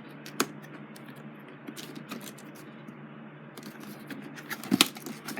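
Toy box packaging being handled and opened by hand: scattered scratches and small clicks, with a sharp click about half a second in and a few louder clicks near the end.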